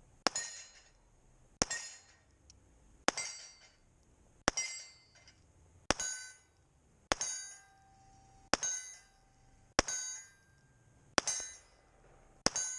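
About ten pistol shots fired at an even pace, a little over a second apart, each followed by the ringing clang of a struck steel target plate.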